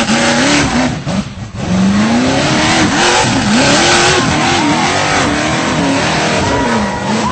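V8 engine of a tube-chassis rock buggy revving hard on and off the throttle as it climbs a steep dirt hill, its pitch rising and falling again and again. The revs drop briefly about a second in, then climb again.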